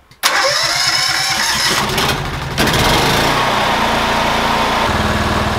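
Honda EM5000SX generator's single-cylinder engine, converted to run on propane, started cold: it catches suddenly about a quarter second in and then runs steadily.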